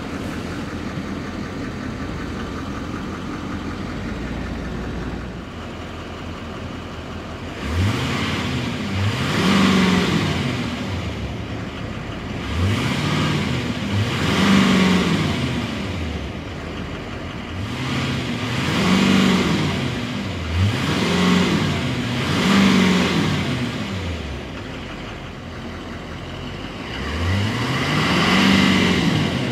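2015 Chevrolet Silverado 2500HD's 6.6-litre Duramax V8 turbodiesel, heard from inside the cab. It idles for several seconds and is then revved up and let fall back about eight times, the engine note rising and dropping with each blip.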